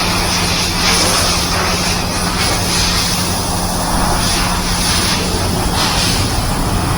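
Steady machine noise in a motorcycle service workshop: a low hum with a loud, even hiss above it.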